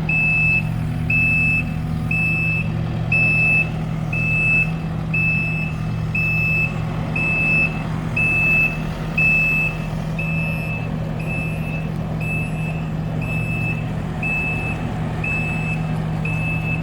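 A vehicle's reversing alarm beeping steadily, about once a second, over an engine running at a steady speed.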